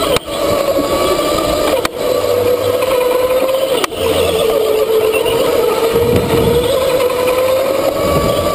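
Go-kart motor running hard on a lap, heard from on board, its steady note dipping through a corner in the middle and climbing again near the end. The sound drops out very briefly three times in the first four seconds.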